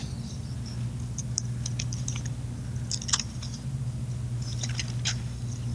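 Short, scattered rustles and flicks of thin Bible pages being turned to find a passage, over a steady low hum.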